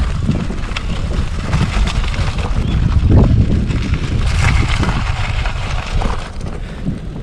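Road bike riding over loose gravel on 30 mm tyres: the tyres crunch, the bike rattles, and wind buffets the microphone with a steady low rumble. The noise eases about six seconds in, as the bike rolls onto smooth asphalt.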